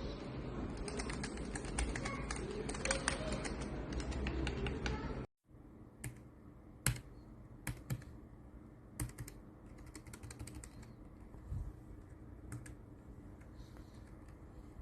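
Typing on a Keychron low-profile mechanical keyboard. Rapid key clicks sound over a noisy background, then after a cut about five seconds in come scattered single keystrokes in a quieter take.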